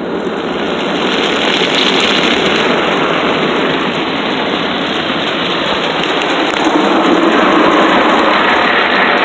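Car-wash water jets spraying onto the car's windshield and body, heard from inside the cabin as a dense rain-like hiss. It grows louder about a second in and again near seven seconds.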